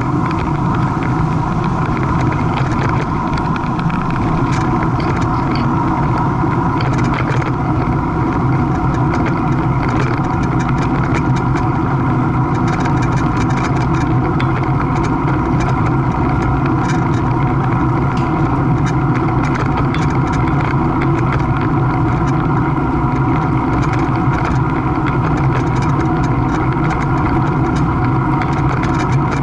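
A steady engine drone at a constant pitch, with no change in speed.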